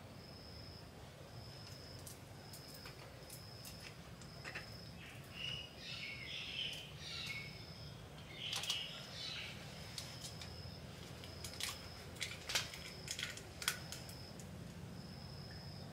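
An insect chirping in a steady high pulse about once a second, over a low hum, with scattered sharp clicks and a couple of brief louder noises.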